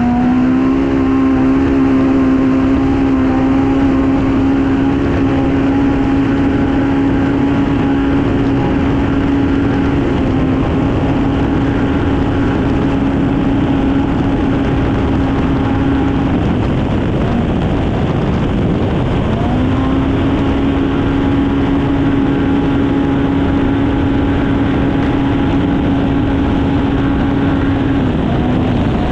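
Polaris Pro R race UTV engine heard onboard at full race pace: the revs climb at the start and hold steady and high, drop away for about three seconds a little past the middle, then climb back and hold again, with a brief dip near the end. Constant wind and rough-ground noise runs underneath.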